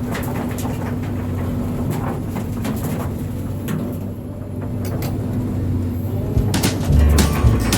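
Diesel engine of heavy construction equipment running steadily, with scattered sharp clanks and knocks. A heavier low sound comes in near the end.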